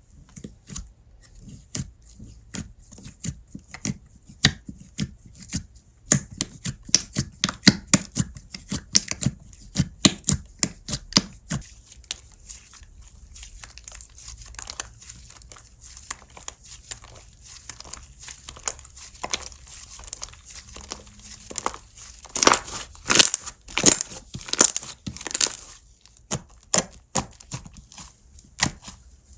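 Slime being stretched, folded and pressed by hand, giving rapid sharp crackling pops and clicks. The popping comes in two busy bursts, one about six seconds in and a louder one about twenty-two seconds in.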